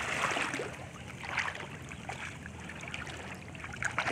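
Shallow water splashing and sloshing as someone wades and gropes with their hands, with short irregular splashes.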